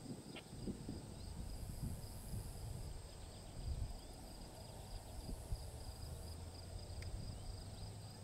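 Crickets and other insects trilling steadily in late-summer grass, with a faint low rumble of wind or distant noise underneath.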